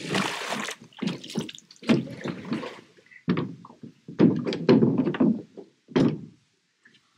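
Irregular knocks and thumps in quick clusters on a rowing boat, with a short splash of water in the first second, as things are handled and shifted in the boat.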